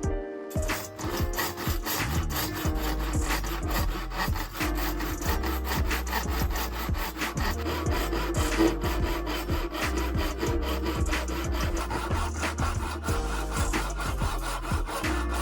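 Hand saw cutting through hard oak (nara), in a continuous run of rhythmic back-and-forth strokes.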